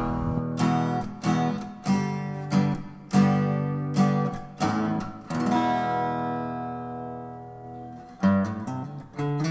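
Background music: strummed acoustic guitar, a chord about every two-thirds of a second, with one chord left ringing out for a couple of seconds in the middle before the strumming picks up again.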